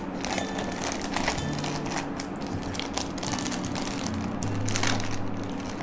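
Crinkling and rustling of a sweet's packaging as it is handled and unwrapped, a run of irregular small crackles and clicks.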